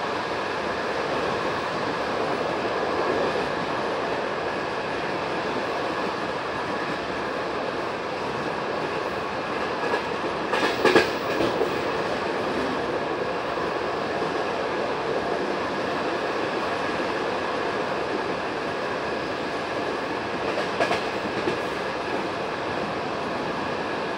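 Passenger train running, heard from aboard a carriage: a steady rumble of wheels on the rails. A short cluster of clacks comes about ten seconds in, and another near the end.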